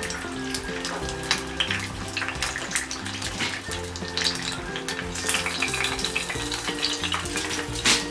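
Turon (banana and jackfruit spring rolls) deep-frying in hot vegetable oil, a steady sizzle with dense crackling and one louder pop near the end, over light background music.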